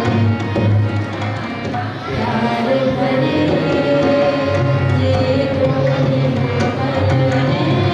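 A man and a woman singing a devotional bhajan into microphones, holding long notes, with tabla accompaniment.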